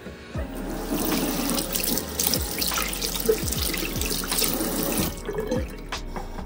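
Single-lever mixer tap on a bathroom sink turned on with a click, water running into the basin and splashing over hands being rinsed under it, then shut off about five seconds in.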